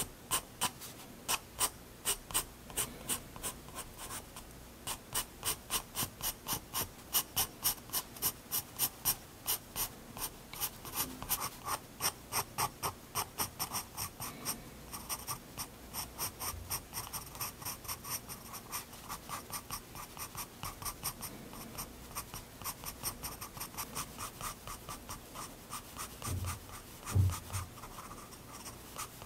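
Prismacolor Turquoise 7B graphite pencil scratching across sketchbook paper in quick, short strokes, about four a second. A single low bump near the end stands out louder than the strokes.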